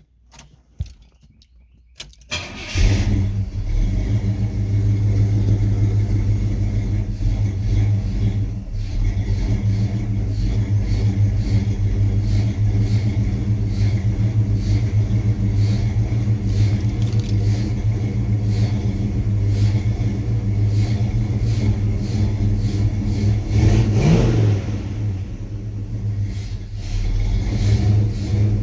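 Key clicks, then an engine with a Holley Sniper EFI throttle body starts about two seconds in and idles unevenly, the rough idle that is the fault being shown. Near the end it revs up briefly once and drops back to idle.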